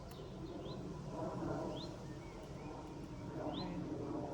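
A small garden bird calling, a short rising chirp repeated about four times, over a low rustling background.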